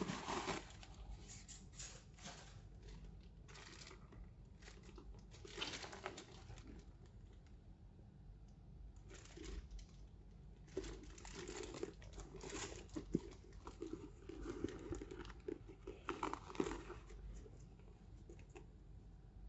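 Wrapping being handled, crinkling and rustling in irregular bursts, with a couple of sharp clicks in the latter half.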